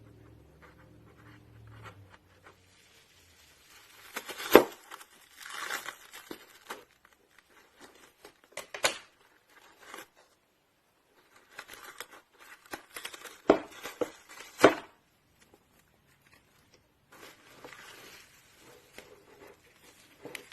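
Hands kneading and stretching slime: crinkly, squishy handling with four sharp pops, the loudest about four and a half seconds in and two close together near the end.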